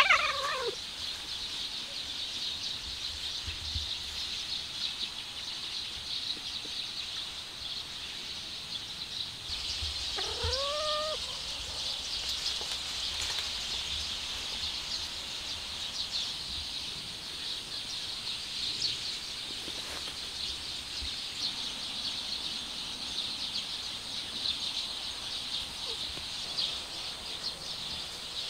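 Cats meowing twice: a loud meow falling in pitch right at the start, and a shorter, rising meow about ten seconds in. Under them runs a steady high-pitched outdoor chorus of small creatures chirring and chirping.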